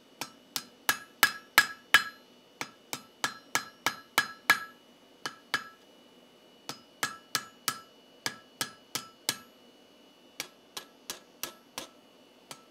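Hand hammer striking a hot steel bar's rolled scroll finial on a steel anvil, a sharp ringing clang with each blow. The blows come about three a second in short runs with brief pauses between, as the scroll is tapped tight and centered.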